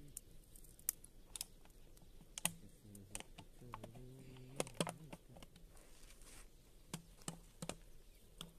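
Dry twigs crackling and snapping in a small open wood fire, giving sharp irregular pops and clicks about once or twice a second.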